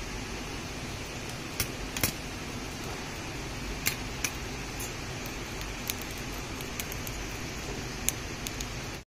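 Wood fire burning in a chulha (clay cooking stove): a steady rush with a dozen or so sharp crackles and pops scattered through it.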